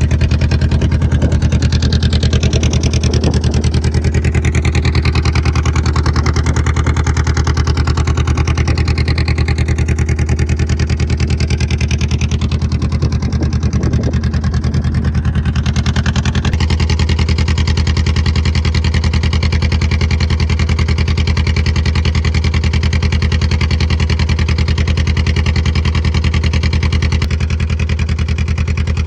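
Boat engine running steadily at a constant pitch, with a slight change in its sound about halfway through.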